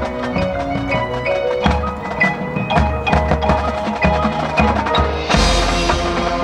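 Marching band front ensemble playing a fast mallet passage on marimba, glockenspiel and chimes over low drum hits, then a loud crash and a full sustained chord about five seconds in.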